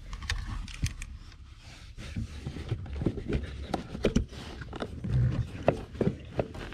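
Irregular light clicks and knocks of hands working a car's floor-mounted accelerator pedal loose in the footwell.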